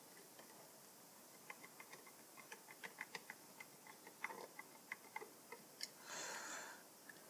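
Faint, irregular small clicks and ticks of hand work with a screwdriver on the plastic housing of GHD hair straighteners, with a short soft hiss about six seconds in.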